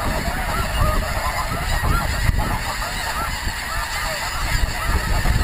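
A large flock of snow geese calling overhead: a dense, continuous chorus of many overlapping high honks.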